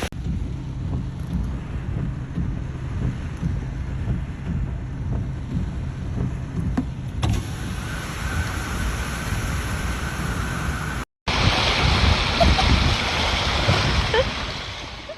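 Rush of heavy rain and floodwater with a low rumble. The sound changes abruptly about seven seconds in and drops out for an instant about eleven seconds in.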